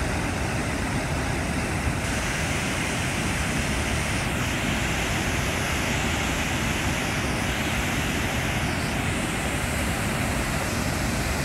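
Water pouring over a dam's overflow spillway: a steady, even rush of falling water.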